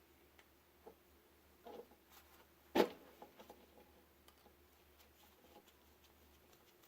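Quiet handling noise from hand work on electrical wiring and a plug: scattered small clicks and taps, with one sharp knock nearly three seconds in.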